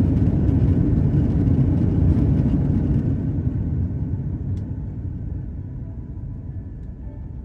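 Cabin rumble of an Airbus A330-300 on its landing roll. The rumble is loud for about three seconds, then dies away steadily as the airliner slows on the runway.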